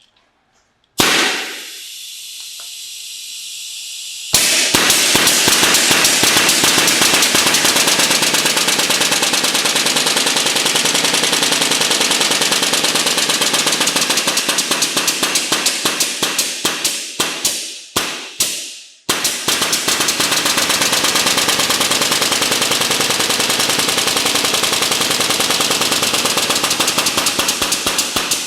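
EVERWIN SN41S5 16-gauge pneumatic medium-crown stapler firing on full-automatic: a brief hiss of compressed air, then a fast machine-gun-like stream of staple shots. The rate slows to separate shots and stops for a moment a little past halfway, then picks up to full speed again and slows once more near the end, as the speed adjustment is turned down and back up.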